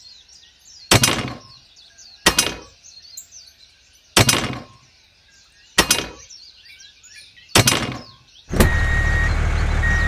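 Five sharp knocks, about one and a half seconds apart, each ringing briefly, over birds chirping. About eight and a half seconds in, a loud steady vehicle engine starts up with a reversing beeper sounding at intervals.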